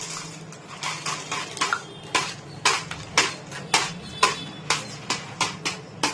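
A small plastic packet being shaken and tapped out over a paper noodle cup: a quick run of sharp crinkling clicks, about two to three a second, louder from about two seconds in.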